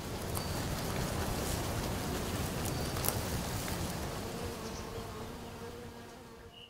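Steady buzzing of flying insects over a low rumble, with a sharp click about three seconds in; the sound cuts off abruptly at the end.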